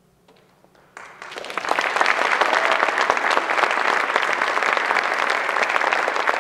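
Audience applauding: the clapping starts suddenly about a second in and swells within half a second to a dense, steady applause.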